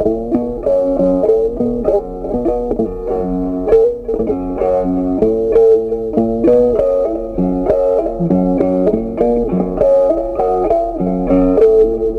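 Background instrumental music with plucked strings, one note after another.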